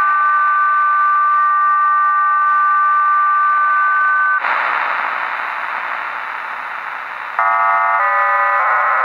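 HM01 numbers station received on shortwave radio, sending its multi-tone digital signal: a chord of steady tones that cuts off about four seconds in to band-limited static, then a new burst of parallel tones that shifts pattern twice near the end.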